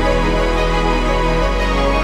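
Background music: sustained chords over a held bass note that changes about one and a half seconds in.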